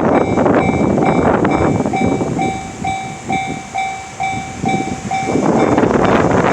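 Railway level-crossing warning bell ringing in a steady beat, about two dings a second, at one unchanging pitch. A loud rushing noise covers it at the start and drowns it out near the end, when the bell can no longer be heard.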